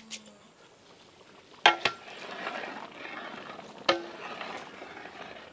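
A metal spoon clinking sharply against the cooking pot three times, two close together and another about two seconds later, as potato pieces go into the mutton korma gravy and are stirred in. A steady sizzling hiss from the cooking gravy runs between the clinks.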